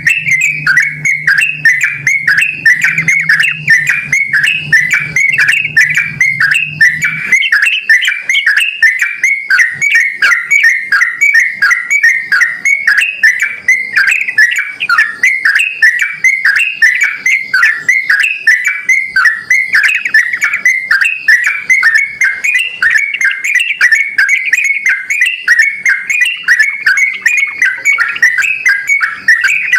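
Yellow-vented bulbul (trucukan) in full song: a loud, unbroken stream of quick, chattering notes repeated several times a second. A low steady hum underneath stops about seven seconds in.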